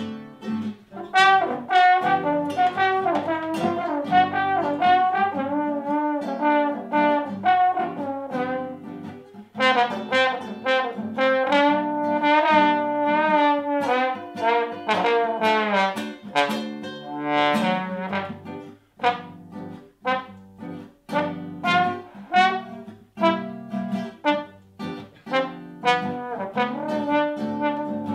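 Trombone playing a slow, sliding melody over a nylon-string classical guitar's plucked accompaniment, a guitar and trombone duo.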